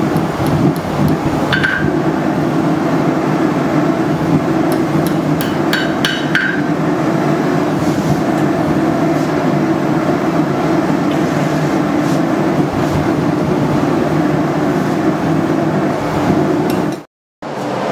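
Blacksmith's hand hammer striking hot steel held in tongs on an anvil. A ringing blow comes about a second and a half in and a quick group of four ringing blows about five to six seconds in, all over a steady loud roar.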